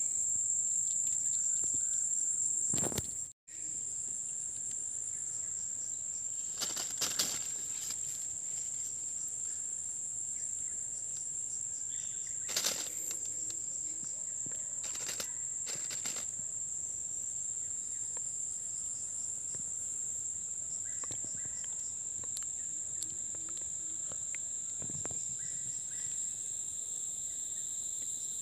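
Insects trilling steadily at one high pitch, with a few brief rustles and knocks scattered through.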